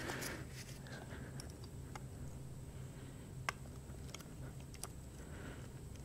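Faint small metallic clicks and ticks of snap ring pliers being worked into the pulley snap ring of an AC compressor clutch, with one sharper click about three and a half seconds in, over a low steady hum.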